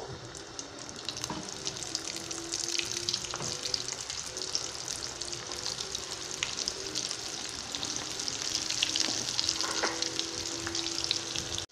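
Hot oil sizzling and crackling in a frying pan as flour-coated potato and minced-meat kefta balls fry in it. The sizzle thickens as more balls go into the oil.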